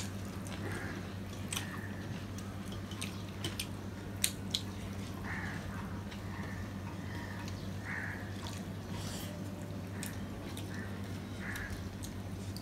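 Close-up eating sounds: wet chewing and lip-smacking, and fingers mixing rice on steel plates, with scattered small clicks and two sharper ones about four seconds in. A steady low hum runs underneath.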